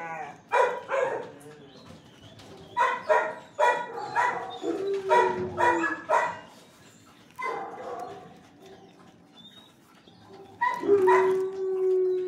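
Kennel dogs barking and yelping in short bursts, with a drawn-out cry about midway and a longer one, sliding down at its end, near the end.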